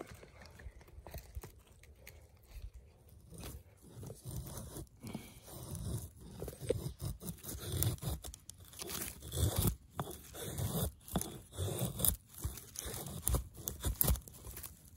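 Axe blade shaving thin curls down a split stick of dry wood to make a feather-stick: repeated scraping, crunching strokes that start a few seconds in.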